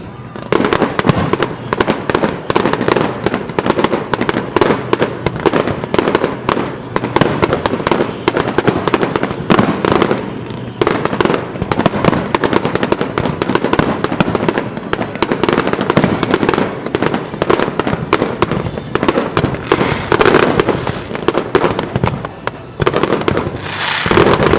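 Fireworks barrage: aerial shells bursting in rapid, overlapping bangs and crackles, easing slightly about 22 seconds in before a fresh loud flurry near the end.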